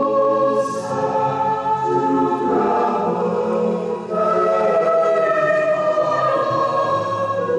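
Church youth choir singing a hymn, holding sustained chords that change every second or two.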